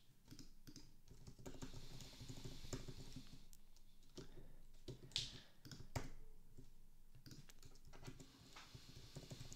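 Typing on a computer keyboard: a quick, uneven run of faint key clicks.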